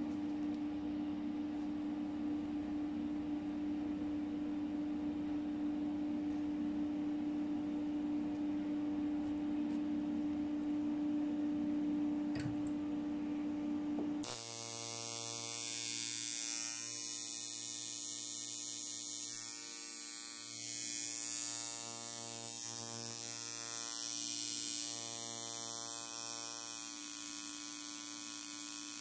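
Handmade coil tattoo machines buzzing steadily as they run. About halfway through, the buzz changes abruptly to a second machine with a different, richer tone.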